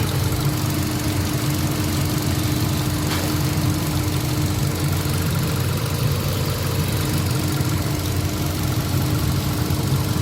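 Hyundai Accent gasoline engine idling steadily. Its throttle body has just been cleaned of the heavy carbon build-up that was blamed for a rough, misfiring, vibrating idle.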